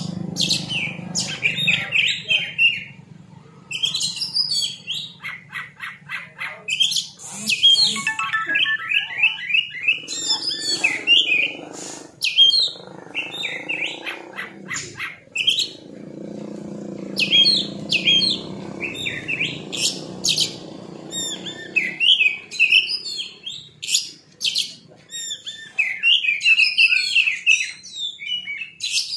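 Oriental magpie-robin (kacer) singing loud, varied phrases of whistles, fast repeated chattering notes and harsh calls, with short pauses between phrases.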